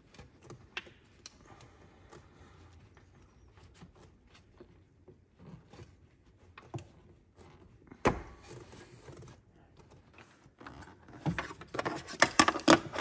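Small metal tools and parts being handled: scattered light clicks and clinks, a sharp knock about eight seconds in, and a quick run of rattling clinks near the end.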